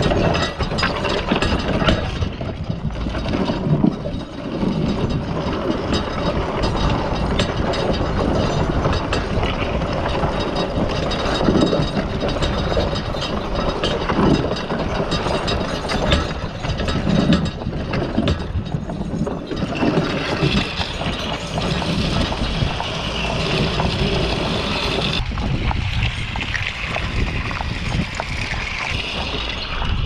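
Horse-drawn wooden rig loaded with hay rattling, creaking and clanking as it is pulled along, with irregular knocks. About 25 seconds in, the low rattling eases and a steadier hiss takes over.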